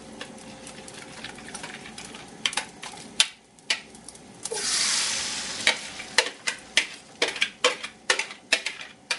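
Chijimi batter of egg, flour and nira frying in a pan of hot sesame oil, sizzling steadily. About five seconds in, a loud burst of sizzling swells and fades, followed by a quick run of sharp clicks, about three a second.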